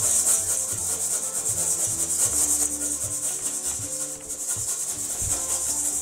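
Background music: a steady, fast shaker rhythm over a stepping bass line.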